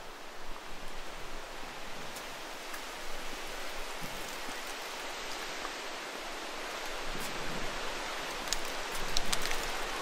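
Steady rushing hiss of outdoor ambient noise, with a few light ticks near the end.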